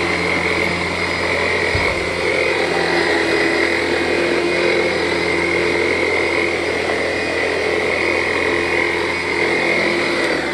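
Vacuum cleaner running steadily over carpet, with a steady high whine over its motor hum.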